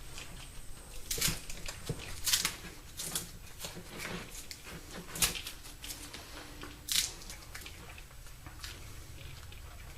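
Tape being pulled off the roll and wrapped around a bundle of wires, a few irregular short rasps and crinkles over handling noise.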